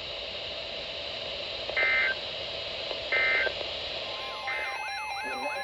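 Radio channel hiss with two short touch-tone (DTMF) beeps, about 2 and 3 seconds in, followed by a third tone. Near the end a repeating warbling tone starts, about two sweeps a second, over steady tones.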